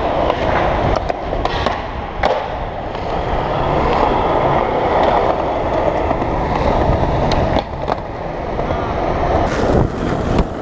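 Skateboard wheels rolling over pavement, a steady rumble broken by several sharp clacks of the board.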